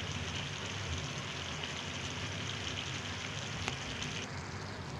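Maggi noodles simmering in an open pan, a steady bubbling hiss. A higher part of the hiss drops away about four seconds in.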